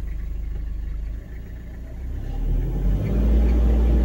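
Toyota Dyna's 3.0-litre 5L-E four-cylinder diesel engine, just started, heard from inside the cab: it idles with an even pulsing clatter, dips briefly about a second in, then revs up from about two seconds in and holds a higher, louder speed.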